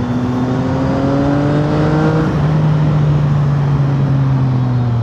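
CFMoto 675NK's 674 cc three-cylinder engine pulling under way, its pitch rising for about two seconds. Then the pitch drops abruptly at a gear change, and the engine runs on steadily.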